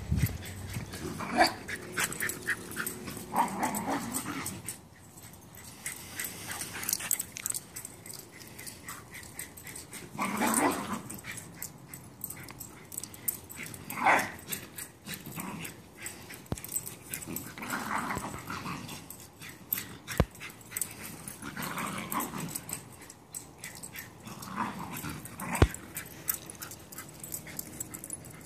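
Two wire-haired terriers playing and chasing each other, vocalizing in short bursts every few seconds. Two sharp clicks come in the second half.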